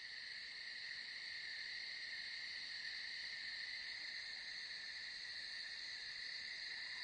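A steady chorus of crickets: an even, high-pitched chirring without breaks.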